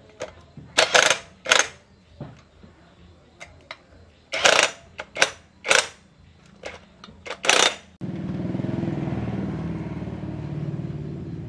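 Cordless drill/driver running in a series of short trigger bursts as it works the bolts of a motorcycle rear sprocket. About eight seconds in this gives way abruptly to a steady low mechanical rumble.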